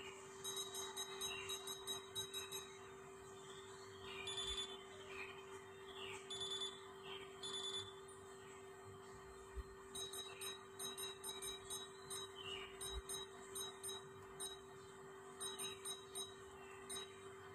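Futaba 8FG radio-control transmitter beeping: short, high electronic key beeps in quick runs as its menus are stepped through with the touch-scroll pad and keys, over a faint steady hum.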